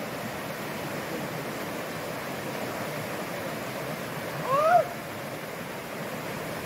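A shallow, rocky river rushing steadily over stones in small rapids. About four and a half seconds in, a short shouted call rises and falls in pitch.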